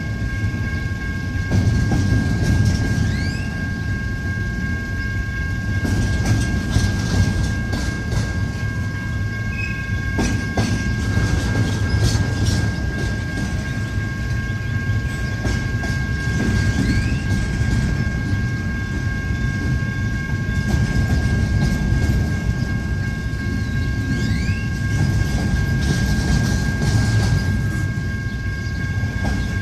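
Intermodal freight train cars rolling past with a steady low rumble and the clatter of wheels over the rail joints. A few thin, steady high tones ring faintly above it.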